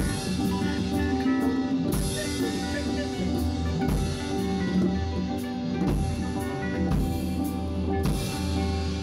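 Background music: an improvised jazz jam with piano and a steady drum beat.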